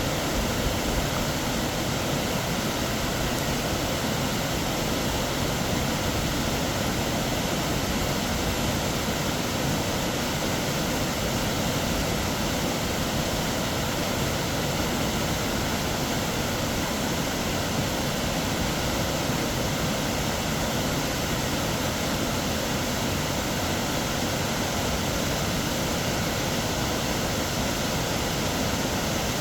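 Snoqualmie Falls, a 268-foot waterfall, giving a steady, unbroken roar of plunging water.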